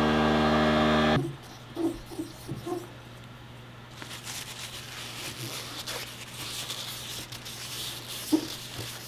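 A steady machine hum cuts off suddenly about a second in. From about four seconds, a paper towel rubs faintly against an aluminium yo-yo half, wiping it, with a few light knocks.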